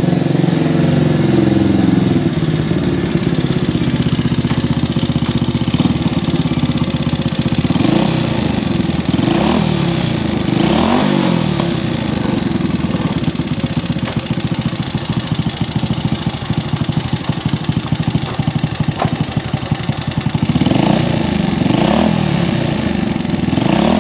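Old Honda Supra X four-stroke single-cylinder motorcycle engine running rough and noisy, idling with the throttle blipped up and back down a few times about a third of the way in and again near the end. The roughness is a kind of noise the mechanic says is most often traced to the cylinder head: valve clearance, a worn camshaft or a slack cam chain.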